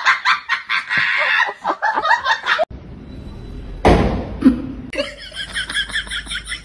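Laughter in quick bursts that cuts off abruptly about two and a half seconds in, followed by a brief loud noise and then a quieter, rapid pulsing sound.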